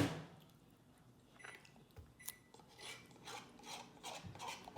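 A plastic bottle of orange juice and utensils being handled. A sharp knock comes right at the start, then a scatter of small clicks, taps and scrapes.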